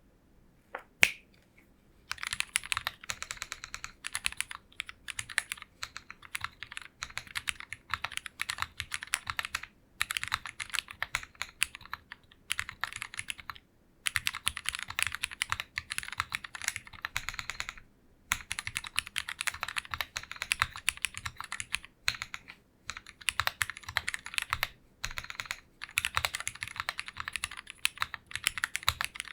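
Typing on an Owlab Mr. Suit TKL mechanical keyboard with lubed Cherry MX Black Hyperglide linear switches, a PC plate and PBT Cherry-profile keycaps: a fast stream of keystrokes broken by several short pauses. A single sharp click, the loudest sound, comes about a second in, before the typing begins.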